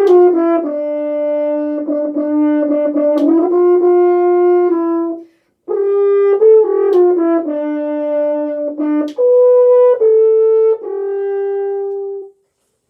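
French horn playing an audition excerpt: a phrase of held and moving notes, a short breath break about halfway, then a second phrase ending on a long held note about half a second before the end.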